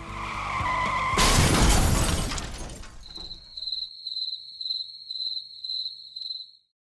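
Comedy sound effects: a tyre squeal building for about a second, then a loud crash, then a high chirp repeating about twice a second like crickets, which stops shortly before the end.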